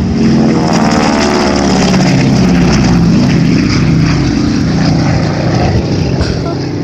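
North American T-6 Texan (SNJ-5) flying low past, its nine-cylinder Pratt & Whitney R-1340 radial engine and propeller loud. The pitch drops as it passes, loudest about three seconds in, then fades a little as it goes away.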